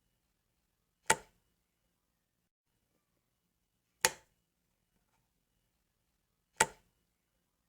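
Light switch flicked three times, each a single sharp click, a few seconds apart.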